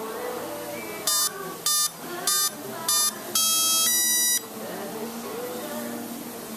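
Brushless speed controller's power-up beeps sounded through the ducted-fan motor: four short even beeps about half a second apart, then two longer tones, the second higher, which mark the controller arming.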